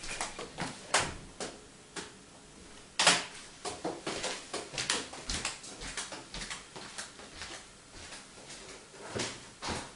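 Scattered light clicks and knocks in a small room, with one louder knock about three seconds in.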